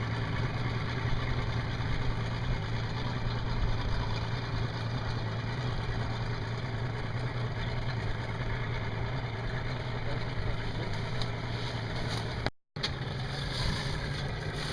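Boat motor idling steadily, a constant low hum that cuts out for a moment near the end.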